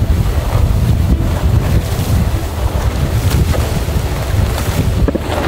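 Wind buffeting the microphone aboard a sailing yacht under way: a loud, unsteady low rumble over the rush of wind and sea.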